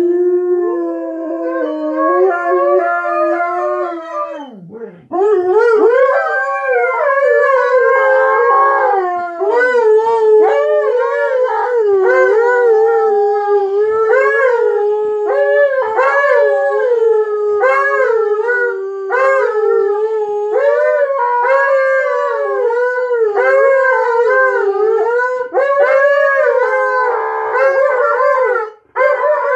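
Two Alaskan Malamutes howling together in long, wavering howls that overlap, with a brief break about five seconds in.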